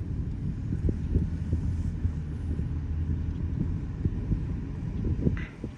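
Car driving, its engine and road noise making a steady low rumble with many small thumps from the suspension. A brief knock comes about five seconds in, and the rumble drops off just before the end.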